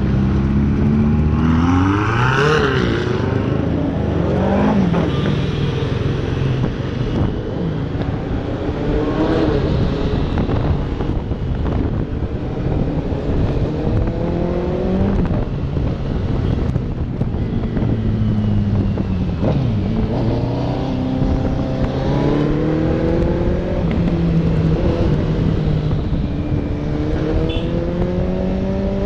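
Motorcycle engine of a KTM Duke 390 heard from the rider's seat, accelerating again and again, its pitch climbing and dropping back at each gear change. In the first few seconds the Ferrari 488 GTB with its Capristo exhaust revs alongside.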